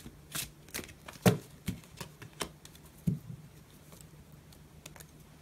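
Tarot cards being handled and set down on a table: a string of light taps and clicks, with two louder taps about a second and three seconds in, thinning out after about three and a half seconds.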